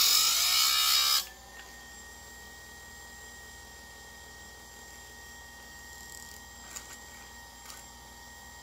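Electric chainsaw chain grinder's wheel grinding a cutter on a new saw chain: a loud grinding hiss that stops about a second in as the wheel comes off the tooth. The grinder motor then keeps running with a steady thin whine, with a couple of faint clicks near the end.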